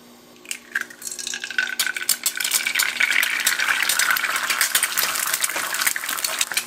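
An egg sizzling as it fries in oil in a frying pan, the dense crackle building from about a second in, after a couple of light clicks.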